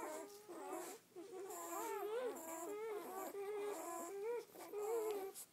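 A litter of newborn Doberman pinscher puppies squeaking and whimpering, several thin, wavering cries overlapping almost continuously.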